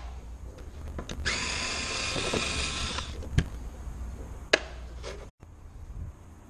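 Cordless drill/driver whirring for about two seconds, then two sharp knocks as tools are set down on the car's parcel shelf.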